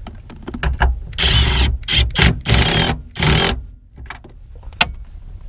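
Plastic under-dash fuse box being worked into place on its mounting bolt: scraping and rattling against the dash panel and wiring in several loud bursts over about two seconds, with small clicks before and one sharp knock near the end.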